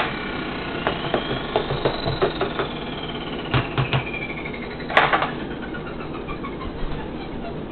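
Jack LaLanne centrifugal juicer's electric motor running with a steady whine whose pitch slowly sags and recovers, over a scatter of sharp clicks and knocks, the loudest cluster about five seconds in.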